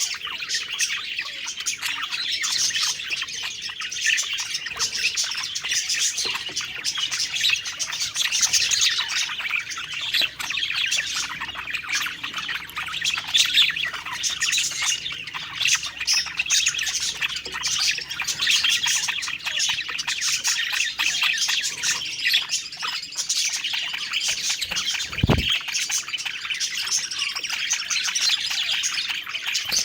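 Budgerigars chirping and warbling in a dense, continuous chatter, with a single soft low thump near the end.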